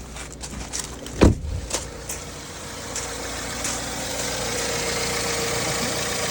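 BMW N43 four-cylinder petrol engine idling steadily with a constant hum, running smoothly with no injector misfire. A single loud thump about a second in, then the engine grows a little louder and holds steady.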